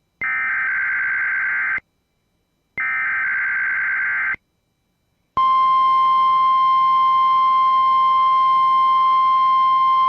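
Emergency Alert System SAME header data bursts, the last two of three: each a harsh digital screech about a second and a half long, with about a second of silence between them. About five seconds in, the NOAA Weather Radio 1050 Hz warning alarm tone starts: one loud, steady, unbroken tone, sent here as a weekly test of the alarm.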